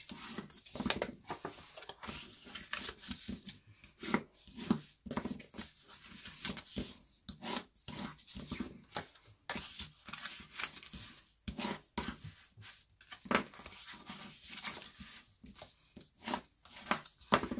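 Scored cardstock folded and burnished with a bone folder: many quick, irregular scraping strokes of the folder along the creases, mixed with the crackle of the stiff paper being pressed flat.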